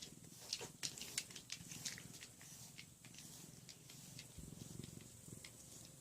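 A pet brush rasps through fur in quick short strokes, thicker in the first few seconds and sparser after. Under it runs a low, fine-grained purr from a cat.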